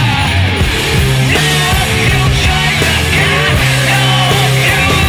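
Loud rock music with drums and a held bass line.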